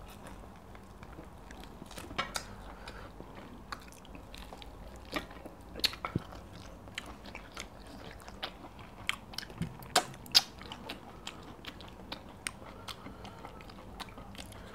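Close-miked eating: chewing and wet mouth smacks as meat and fufu in sticky ogbono soup are eaten by hand, with irregular sharp clicks throughout, the loudest about ten seconds in.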